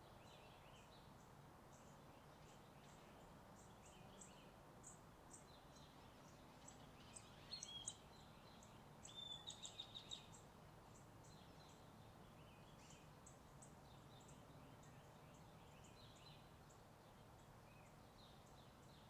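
Faint morning birdsong: small birds chirping over and over, with a louder quick run of chirps near the middle, over a steady low hum of distant highway traffic.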